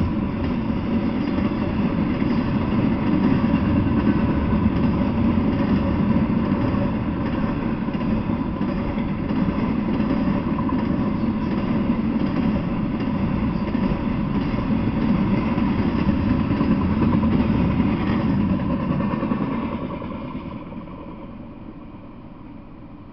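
Double-stack intermodal container freight train passing on the rails with a steady noise, which fades away about twenty seconds in as the last cars clear.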